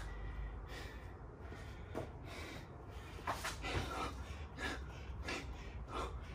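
A man breathing hard, with a string of irregular sharp breaths and gasps, winded from the exertion of burpees with push-ups.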